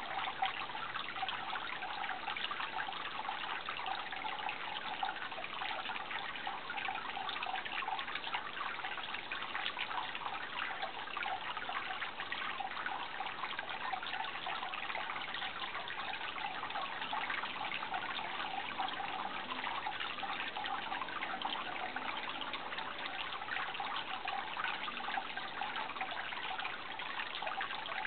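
Running water trickling steadily, a constant splashing rush with fine flickering detail.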